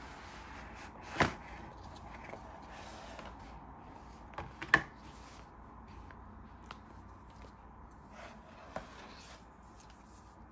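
Handling of an Apple Magic Keyboard in its cardboard box: a few sharp knocks and taps of the keyboard and packaging against each other and the table, the loudest about a second in and midway, over quiet room hiss.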